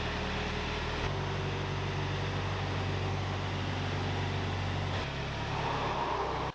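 Wood-Mizer LT35 sawmill engine running steadily. Its pitch steps about a second in and again about five seconds in, and it cuts off abruptly at the end.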